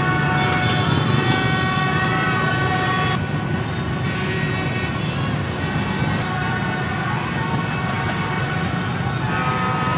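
A dense mass of motorbikes running through a street with many horns honking continuously over the rumble of engines. The layer of horns thins out a little after three seconds in.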